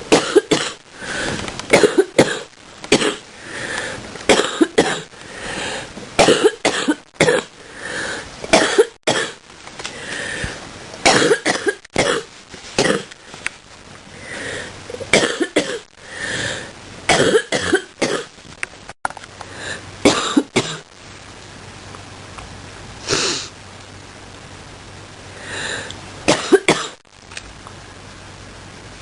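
A person coughing over and over in close-packed fits of short coughs for about twenty seconds, then easing off to two single coughs near the end.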